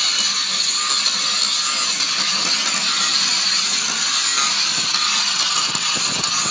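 Handheld angle grinder running steadily with a polishing disc pressed along the edge of a two-inch granite strip: a continuous, even, high grinding hiss.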